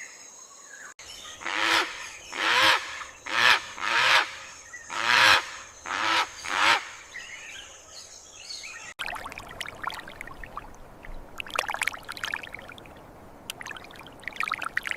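About seven loud, harsh bird calls in quick succession, followed after a cut by a steady rushing, water-like noise with scattered faint chirps.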